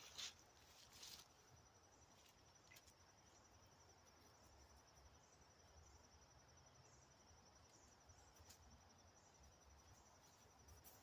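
Near silence: faint outdoor background with two soft rustles in the first second or so and a few scattered faint clicks after.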